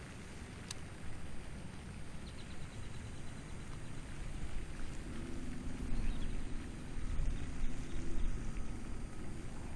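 Wind buffeting the microphone: an uneven low rumble that grows stronger in the second half, with a single sharp click about a second in.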